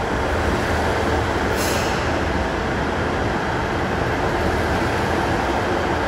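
Train moving along the station platform: a steady, loud rumble and rush of wheels and running gear. There is a short high hiss about a second and a half in.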